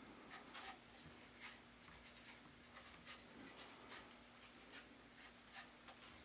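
Faint scratchy rubs and light taps of fingers pressing and smoothing wet clay, joining a coil to the clay base of a coil-built tea bowl, over a faint steady hum.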